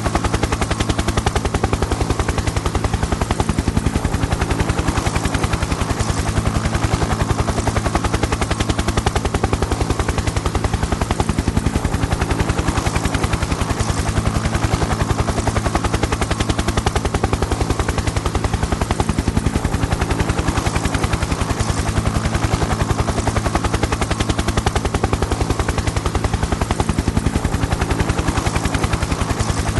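Helicopter running steadily, its rotor blades beating in a fast, even chop over a constant low engine hum, with no change in loudness.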